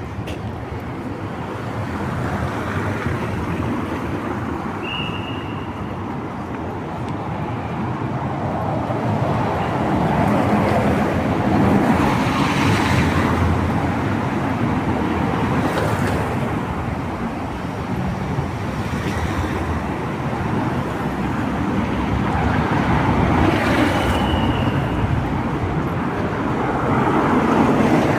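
Street traffic on a rain-wet road: cars passing one after another with a tyre hiss that swells and fades with each pass. Two short high squeals are heard, one early and one near the end.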